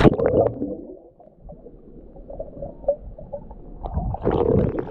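A splash as the camera plunges into the surf, then the muffled sound of being underwater: a low rumble with small bubble pops and gurgles. About four seconds in comes a louder rush of churning water.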